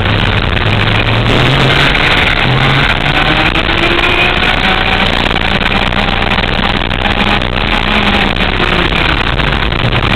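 Racing kart engine running hard at full throttle, its pitch climbing over the first few seconds as the kart accelerates, heard through heavy wind rush on the onboard microphone.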